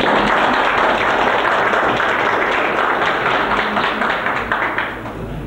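Audience applauding: a dense clatter of many hands clapping that dies down near the end.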